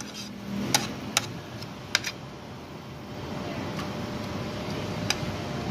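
Metal spoon and fork clinking against a ceramic soup bowl and plate: a few sharp clinks, most in the first two seconds and one more near the end, over a steady low background hum.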